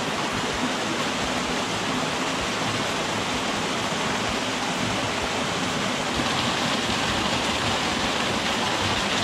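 Steady rush of a small mountain creek cascading over rocks into a pool.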